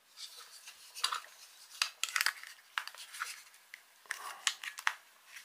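Light plastic clicks and rubbing from the battery cover of a Mecool KD1 Bluetooth remote control being handled and slid back on over its AAA battery compartment. The clicks are quiet and come irregularly, with small clusters around the middle and near the end.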